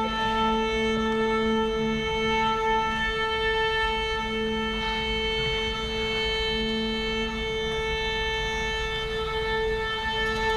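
String orchestra of violins and cellos holding long steady bowed notes, the same few pitches sustained without change.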